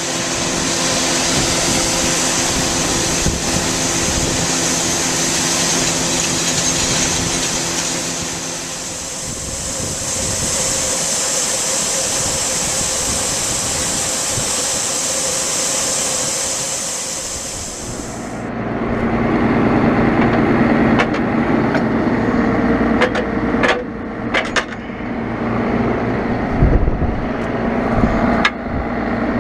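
Farm tractor's diesel engine running steadily under strong wind hiss. About 18 seconds in the sound changes abruptly: the hiss drops away and the engine is heard lower and heavier, with scattered clicks and knocks.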